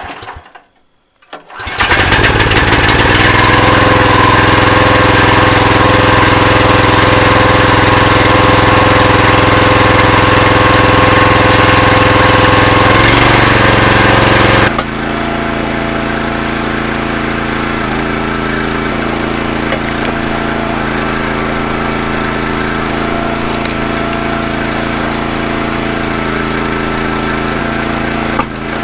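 Kohler Command Pro 14 hp single-cylinder engine catching about two seconds in on a cold pull-start with the choke on, then running loud and steady. About halfway the sound drops suddenly to a quieter, lower steady run.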